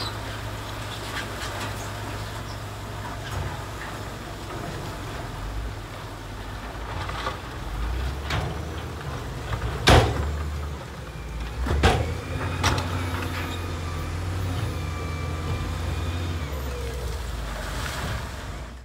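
Diesel engine of a heavy earthmoving machine running steadily, with a few sharp knocks, the loudest about ten seconds in and two more near twelve seconds.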